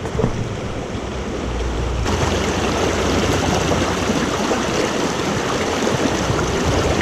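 Small mountain creek rushing and splashing over rocks in a steady wash, growing a little brighter and louder about two seconds in.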